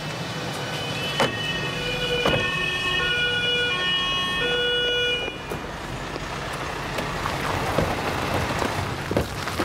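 An emergency vehicle's siren sounding in steady, alternating pitches, which cuts off about five seconds in.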